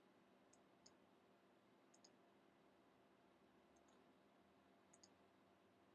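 Near silence with a few faint, short clicks, mostly in close pairs, scattered about a second or so apart.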